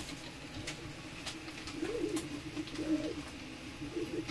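3D printer's stepper motors running: a steady hum with short tones that sweep up and back down in pitch as the print head moves, about three times. A few light clicks and plastic rustles of a bag being handled.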